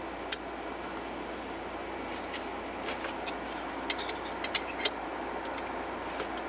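Scattered small clicks and scrapes of an Allen key tightening a build-plate screw on a resin 3D printer, about ten clicks over steady background noise.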